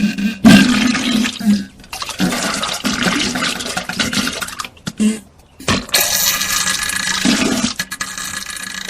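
Diarrhoea sound effect: loud, wet, spluttering splashes of watery noise with low gassy tones. It comes in three long stretches broken by brief pauses about two and five seconds in.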